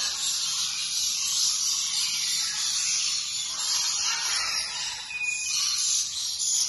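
Many caged lorikeets calling at once, a dense steady chatter of high calls.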